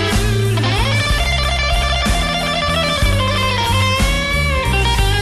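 Electric blues recording: a lead electric guitar plays an instrumental break over the band's steady low notes, with a note bent upward about a second in.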